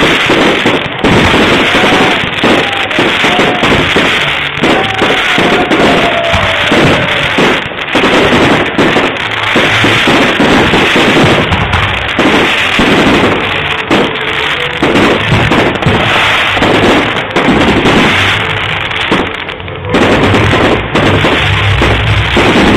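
Aerial fireworks shells bursting close overhead in a dense barrage of bangs and crackling that goes on without a break.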